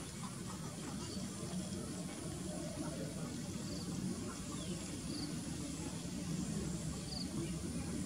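Steady outdoor background: a low rumble and hiss, with a few faint, short, high chirps every second or two.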